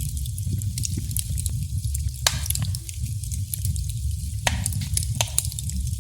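Wood fire crackling in a fireplace: a steady low rumble of burning with frequent small sharp pops, and two louder snaps about two and four and a half seconds in.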